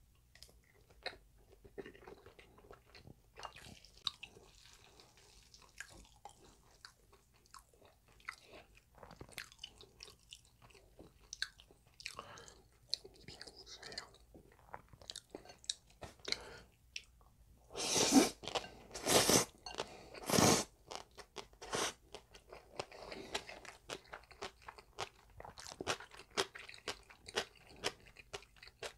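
Close-miked chewing and wet mouth sounds of eating spicy mixed noodles (bibim-guksu) and boiled egg. About two-thirds of the way through come three loud slurps of noodles in quick succession.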